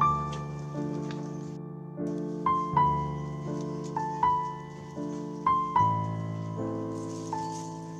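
Background piano music: a gentle melody of struck notes, each fading away, over held chords that change about once a second.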